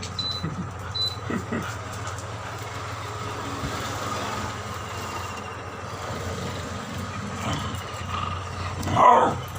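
Steady vehicle or engine noise, with a short, louder sound with a sliding pitch near the end.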